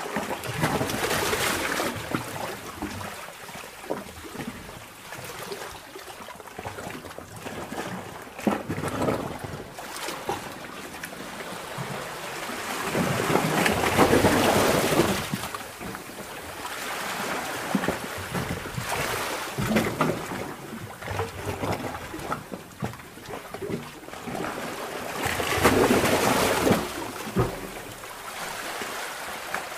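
Sea cave heard underwater: water surging in slow swells about every twelve seconds, with crackling, clicking and trickling water between the surges.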